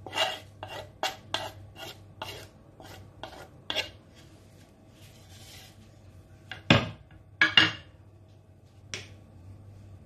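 A metal utensil scraping grated bitter kola off a wooden cutting board into a plastic cup, in quick short strokes about three a second for the first few seconds. Two loud knocks follow about two-thirds of the way through, with a lighter one near the end.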